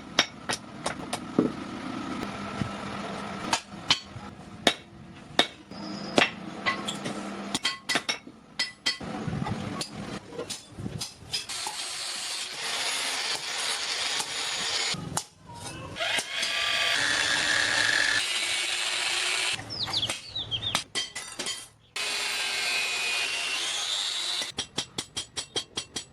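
Metalworking in a blacksmith's shop: scattered hammer blows on metal, then a long steady stretch of noisy tool work on the metal through the middle, and a quick run of light hammer taps near the end.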